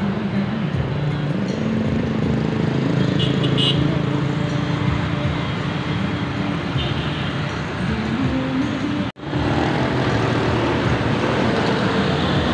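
Steady road traffic: a stream of motorbikes and scooters passing close by, their small engines running and rising and falling in pitch as they go. The sound cuts out for an instant about nine seconds in.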